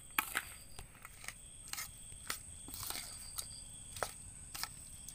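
Steel spoon clinking and scraping against a stainless steel bowl while stirring chopped raw pork with onion, ginger and chili, in irregular clinks about two a second.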